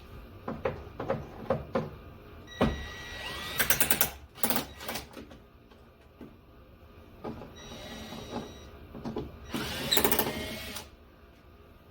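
Clicks and knocks of tools and parts being handled under a truck dash, with two bursts of rapid, even clicking, about four seconds in and again near ten seconds.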